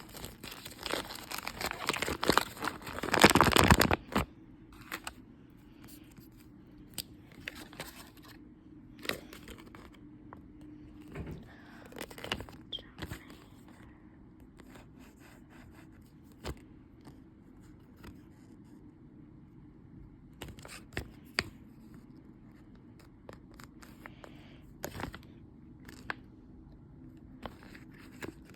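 Toy packaging being torn open by hand: a loud stretch of tearing and crinkling over the first four seconds, then scattered small clicks, taps and rustles as the pieces are handled.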